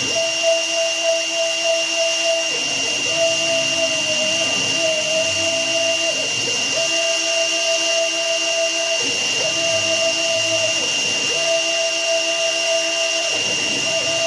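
Hobby CNC router with NEMA 23 stepper motors running a job: the spindle gives a steady high whine with hiss, while the stepper motors hum in runs of about two seconds, broken by short pauses as the axes stop and change direction.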